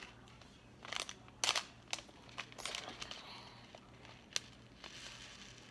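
Beads being handled and worked into slime: irregular crinkly crackles and sharp clicks, loudest in a cluster about a second and a half in.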